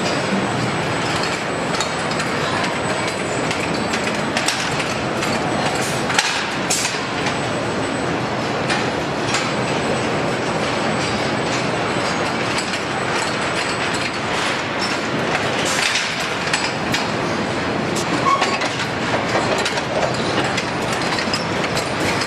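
Car assembly-line machinery: a steady mechanical din from robots and conveyors, with frequent short clanks and clicks and a faint, steady high whine.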